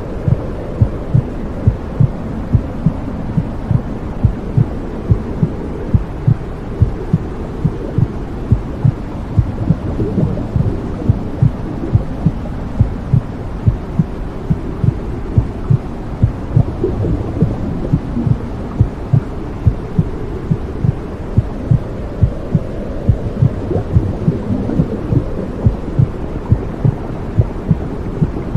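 Womb sound: a steady, regular heartbeat thumping over a continuous low, muffled whooshing rumble.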